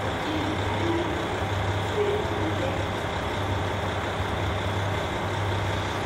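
Steady low drone of a KiHa 40 diesel railcar's engine as the two-car set runs slowly into the station, an even hum with no sudden changes.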